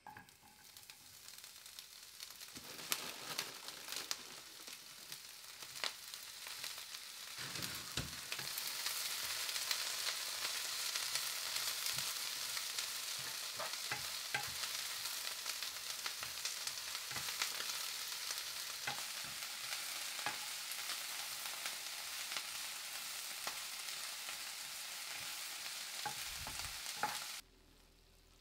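Vegetables stir-frying in a hot frying pan, sizzling steadily while a spatula is stirred through them, knocking and scraping against the pan. The sizzle starts suddenly as the food goes into the empty pan, grows louder over the first ten seconds or so, and cuts off abruptly near the end.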